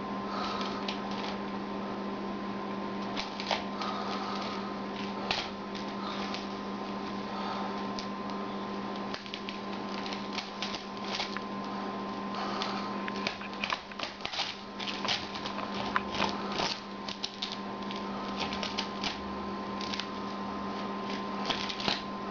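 Masking tape being peeled slowly off a painted canvas, giving irregular crackling rips that come thicker in the second half, over a steady electrical hum.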